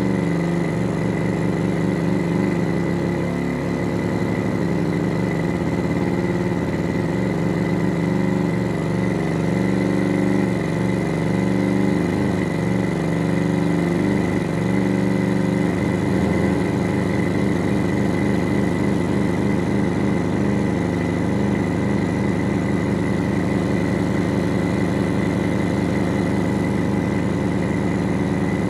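Synthesised engine sound from two function generators in sweep mode, played through a small amplifier and speaker: a steady, even drone imitating a car engine cruising on a country road. Its tone shifts a few times as the generator knobs are turned, most clearly about sixteen seconds in.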